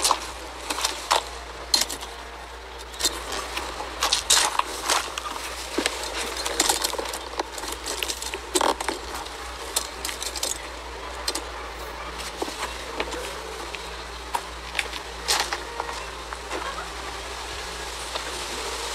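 Irregular, sharp clicks and rustles close to the microphone over a steady hiss.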